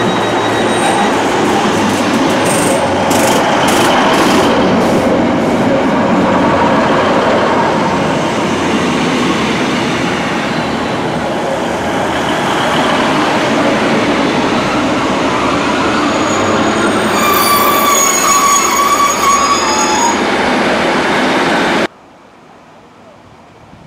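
Northern Class 156 diesel multiple unit running into the platform close by, with diesel engine and wheel-on-rail noise and a run of clicks a few seconds in. A high metallic squeal comes near the end as it slows. About 22 seconds in the sound cuts to a quiet background.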